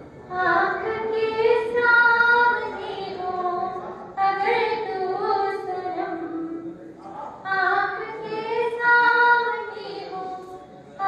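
A woman singing a Hindi poem in the sung style of a kavi sammelan, into a microphone, in three long, held, melodic phrases.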